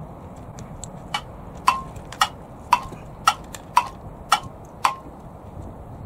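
Clock ticking sound effect, about two ticks a second for around four seconds, marking a time skip, over a steady low background hiss.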